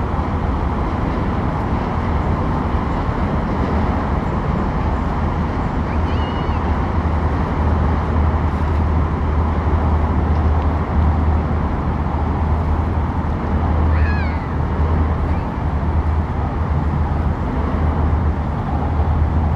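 Harbour ambience: a steady low rumble with broad noise over it, with two short high calls about six and fourteen seconds in.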